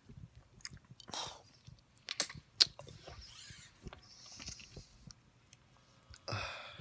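Quiet breaths and small mouth clicks close to the microphone, with one sharp click about two and a half seconds in.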